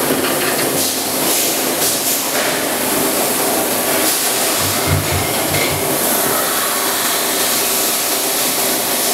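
Plastic injection moulding machine running on a factory floor: a steady loud hiss and machine noise, with a low thump about five seconds in.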